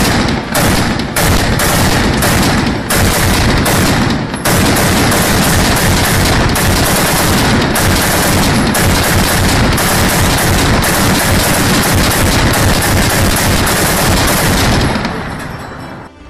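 Sustained automatic gunfire, a machine-gun sound effect: rapid bursts in the first few seconds, then continuous firing that fades out near the end.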